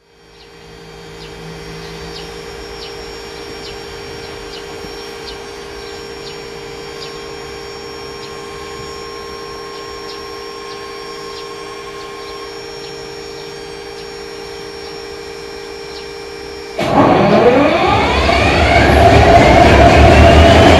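Electroputere-built, GM-engined Class 65 diesel-electric locomotive starting up: a steady hum with light regular ticking while the engine is pre-lubricated, then about seventeen seconds in the diesel fires and runs up, its pitch rising as it gathers speed.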